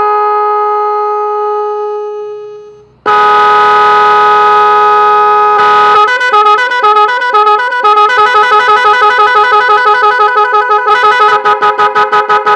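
Multi-tone vehicle horn sounding a loud held chord that dies away over about three seconds. It blasts again sharply and, about six seconds in, breaks into a fast warbling pattern of rapid on-off pulses that speeds up near the end.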